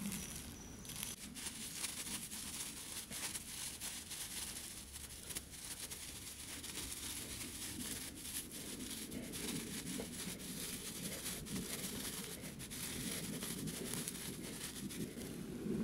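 Dead grass crackling and rustling as it is twisted and rolled between the hands into a bird's nest tinder bundle, a steady run of fine crackles.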